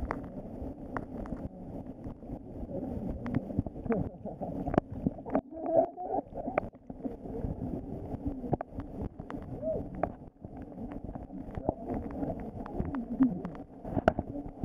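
River water heard through a submerged camera: a muffled low rush of current, dotted with many scattered clicks and knocks.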